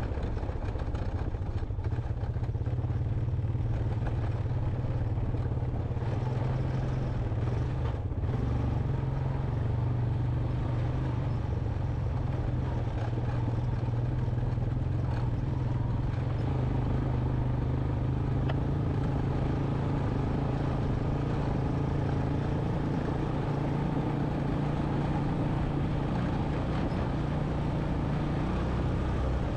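2001 Honda Recon 250 ATV's single-cylinder four-stroke engine running steadily while riding a rough, rocky dirt trail.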